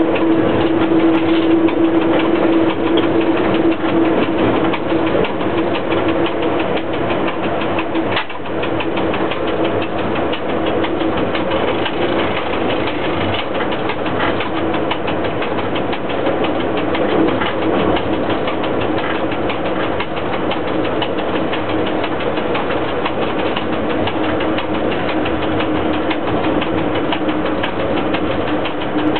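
Cab of a ChS4T electric locomotive under way with a passenger train: steady running noise with a constant hum through it, dipping briefly about eight seconds in.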